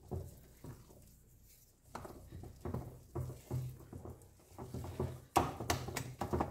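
Hand whisk beating thick cake batter in a glass bowl: a quick run of soft, wet strokes and clicks. It starts sparse and becomes steady about two seconds in, louder near the end.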